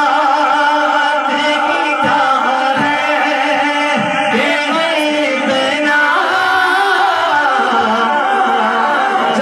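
A man singing a naat solo into a microphone, amplified. He holds long notes that wind up and down in pitch.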